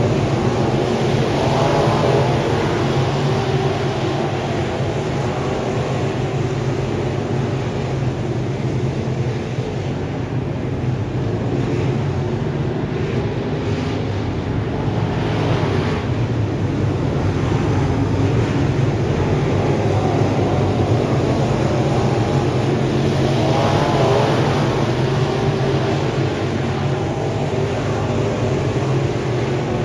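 A field of dirt-track modified race cars running laps, their V8 engines making a steady loud drone. The drone swells as the pack comes closer, about two seconds in and again about three-quarters of the way through.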